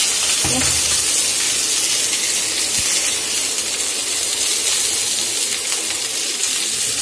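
Sliced onions frying in hot oil, a steady sizzling hiss.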